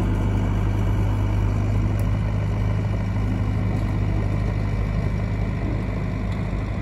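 IHI 80VX2 midi excavator's diesel engine running steadily with a low hum as the machine tracks away, growing slightly quieter near the end.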